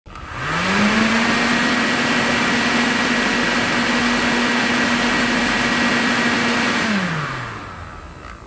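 A small motor spins up within the first second, runs at a steady hum over a loud rushing hiss of air for about six seconds, then winds down near the end.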